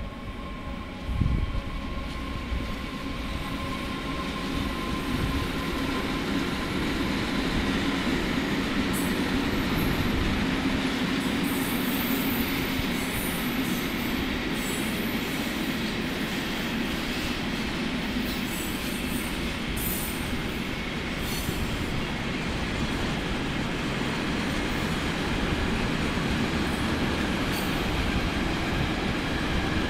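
Freight train of flat, sliding-wall and container wagons rolling past behind an electric locomotive: a steady rumble of wheels on rails, with repeated short high wheel squeals through the middle stretch. A low thump comes about a second in.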